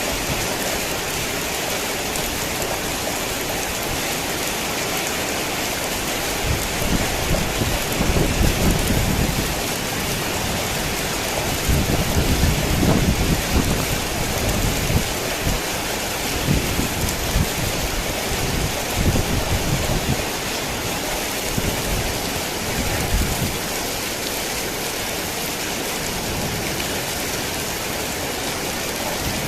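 Heavy rain falling steadily, with thunder rumbling low in several rolling swells from about six seconds in to about twenty seconds, then fading.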